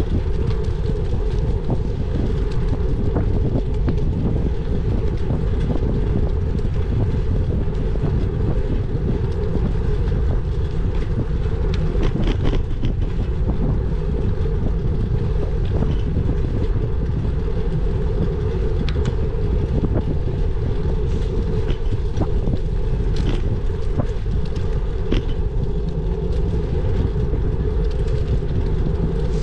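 Steady low rumble of wind and road noise on a bike-mounted camera while riding, with scattered small clicks and rattles.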